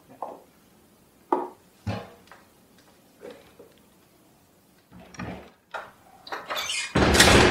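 Door and handling sounds: several short knocks and clicks, then a louder, noisier knock-and-scrape lasting about a second near the end.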